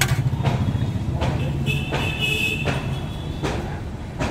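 Steel serving ladle clinking and scraping against a steel curry pot, a few sharp clinks close together in the first half and more near the end, over a steady low rumble of road traffic. A brief high-pitched ring sounds about two seconds in.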